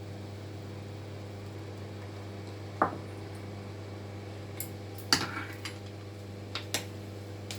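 Metal pots and kitchen utensils clinking and knocking a few times over a steady low hum: one ringing clink about three seconds in, the loudest knock about five seconds in, then a few lighter taps, as the herbal decoction is handled and strained off the stove.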